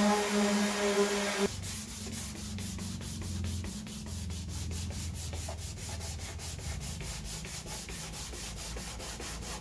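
A Ryobi electric random orbital sander runs with a steady hum on cured body filler for about the first second and a half, then cuts off. Hand sanding of the filler with a sanding block follows: quick rhythmic back-and-forth rubbing strokes, several a second.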